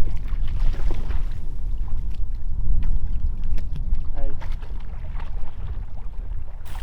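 Wind buffeting the microphone as a heavy, fluctuating low rumble, with scattered light knocks.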